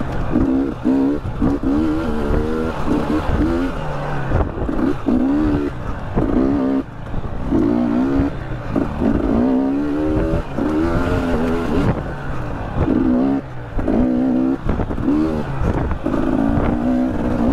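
300 cc two-stroke dirt bike engine revving up and down over and over as the throttle is rolled on and off, the pitch rising again and again every second or two, with wind and riding noise underneath.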